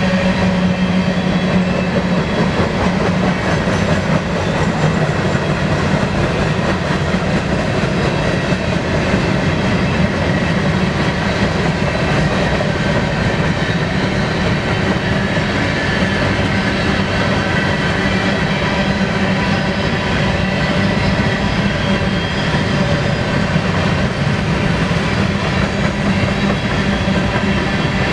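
BNSF freight train rolling past at close range: steady loud wheel-on-rail noise with a clickety-clack from the cars and ringing tones from the wheels and rails, somewhat stronger in the first few seconds.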